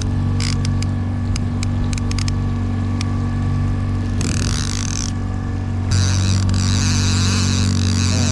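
Boat's outboard motor running steadily at trolling speed, a low hum, with a few light ticks early on. About six seconds in it gets a little louder, with more hiss over the hum.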